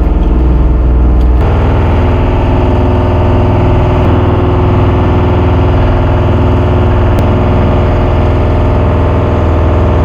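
An engine running steadily, its note stepping up to a higher, fuller sound about a second and a half in, then holding there.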